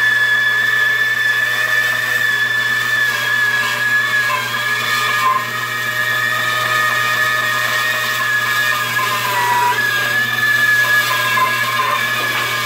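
Bandsaw running and resawing a wood block into thin 3/8-inch laminates. It is a steady machine whine over a low hum, and its pitch wavers slightly as the blade works through the cut.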